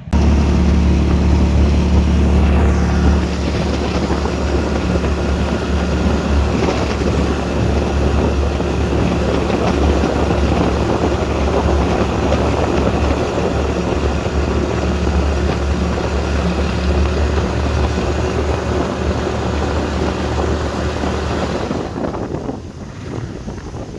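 Boat engine running steadily under way, a loud low drone that drops off about two seconds before the end.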